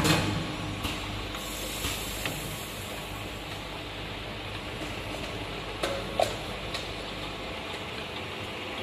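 Granule weighing filling machine and its conveyor running with a steady mechanical hum and hiss, broken by a few light clicks and knocks, the loudest two about six seconds in.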